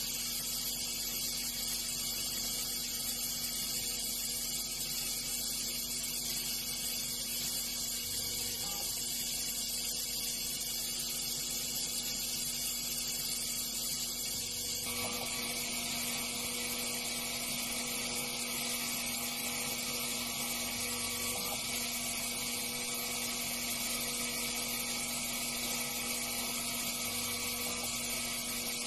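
High-speed CNC spindle whining steadily as a micro drill bit drills a row of tiny holes into a copper penny. The tone of the whine changes about halfway through.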